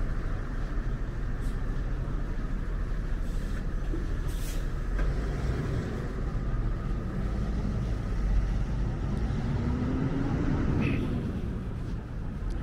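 Steady low rumble of engines, with a brief hiss about four and a half seconds in and one engine rising in pitch around ten seconds in, as in a vehicle pulling away.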